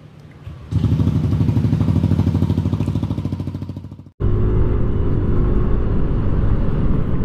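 Yamaha Aerox 155 scooter's single-cylinder engine running for a sound check. It turns loud about a second in, then eases off. A little past four seconds it cuts abruptly to another steady run of the engine.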